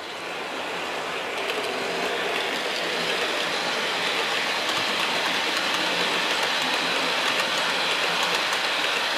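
OO gauge model train of blue-and-grey coaches running past on the track: a steady rolling noise with faint light clicking, growing louder over the first couple of seconds.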